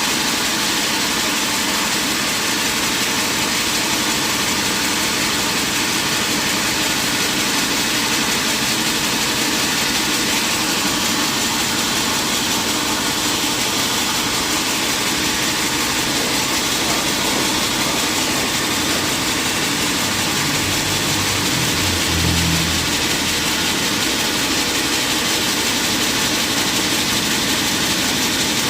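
Sawmill machinery running steadily with a constant hiss and drone, and a brief extra low hum about two-thirds of the way through.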